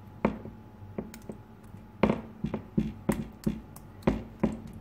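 A steel spoon spreading pizza sauce over dough on a metal pan lid, giving irregular light taps and knocks, roughly one or two a second, as the spoon and the loose lid knock about.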